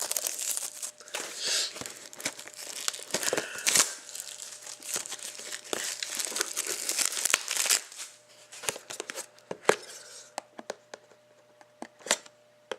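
Plastic wrapping being torn and crinkled off a sealed trading-card box, dense crackling and tearing for about eight seconds, then fewer, scattered crinkles and clicks.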